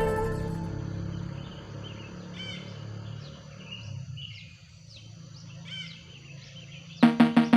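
A few faint, short bird chirps over a low steady background hum. Plucked-string music fades out at the start, and rhythmic percussive music cuts in about seven seconds in.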